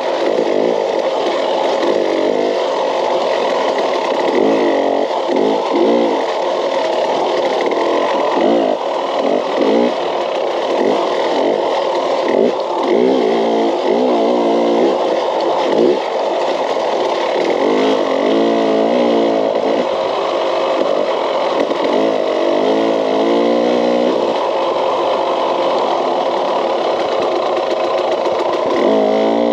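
KTM off-road motorcycle engine under the rider, revving up and falling back again and again as the throttle is worked over rough trail.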